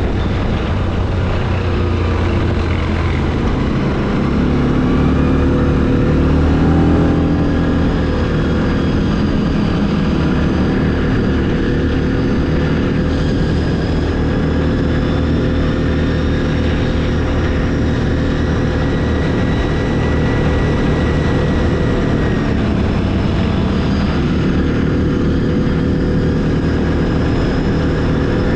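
ATV (quad bike) engine running continuously off-road, its pitch rising and falling as the throttle changes. It is loudest about five to seven seconds in.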